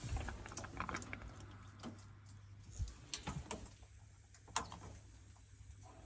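Faint scattered clicks and taps of hands and phone handling, a handful over several seconds, over a faint steady low hum.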